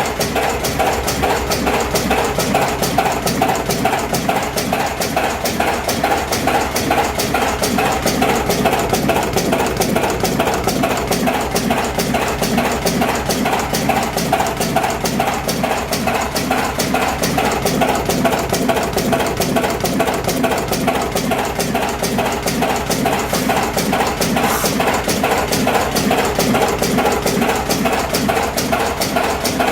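Automatic electric cigarette-making machine running steadily, its mechanism making a fast, even clatter over a constant hum.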